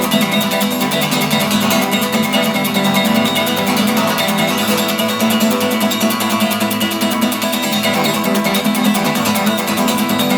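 Music played on a plucked string instrument, dense and steady in level with no pauses.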